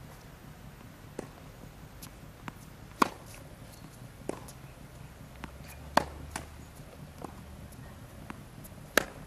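Tennis ball struck by racket strings in a groundstroke rally on a hard court: a sharp pock about every three seconds, the loudest hits, with fainter hits and ball bounces in between.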